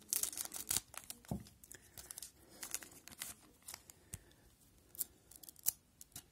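Foil wrapper of a Pacific Adrenaline hockey card pack being torn open and crinkled by hand: clusters of sharp crackles and rips, loudest in the first second and sparser after.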